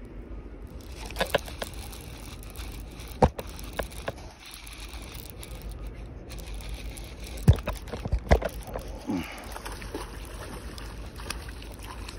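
Wind rumbling on the microphone, with scattered sharp knocks and clicks from handling the spinning rod and reel while fighting a hooked spotted bay bass.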